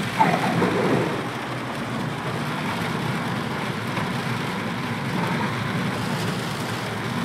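Steady noise inside a car's cabin driving through heavy rain: rain drumming on the windscreen and roof and tyres hissing through water on a flooded road.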